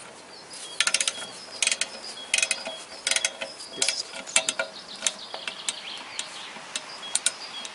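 Click-type torque wrench ratcheting on a clutch pressure plate bolt: about six short bursts of rapid clicks in the first five seconds, then scattered single clicks, as the bolts are checked for torque.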